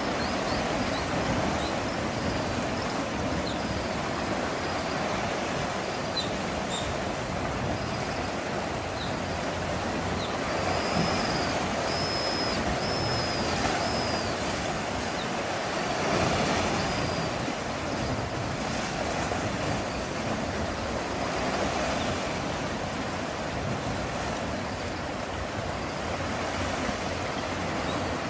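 Sea waves washing steadily against a rocky shore, with a bird chirping now and then, most clearly about halfway through.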